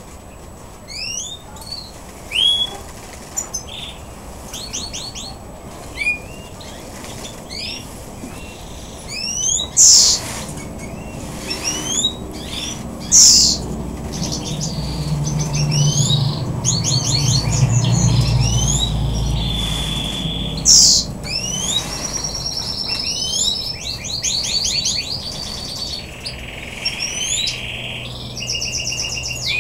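Small caged songbirds chirping continually, with many short rising calls and quick trills, and a few louder sharp bursts about 10, 13 and 21 seconds in. A low rumble comes up in the middle and fades.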